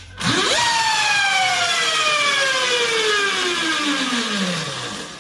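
Electric mini bike's QS138 motor given a quick burst of throttle with the rear wheel off the ground. The whine shoots up in pitch within half a second, then falls slowly and steadily over about four seconds as the wheel coasts down, with a hiss over it.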